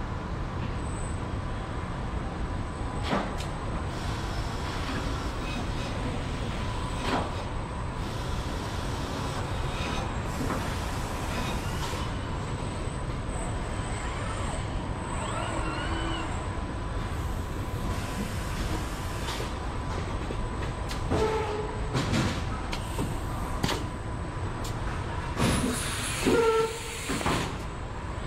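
Car-factory body-shop machinery: a steady low rumble with a faint constant tone, broken by short hisses of compressed air and scattered clicks and clanks. Louder metallic knocks and squeals come near the end.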